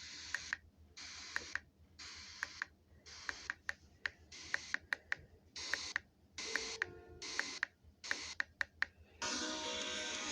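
Radio static hiss cutting in and out in short bursts with sharp clicks between them, as a receiver scans through channels. A station with music comes in near the end.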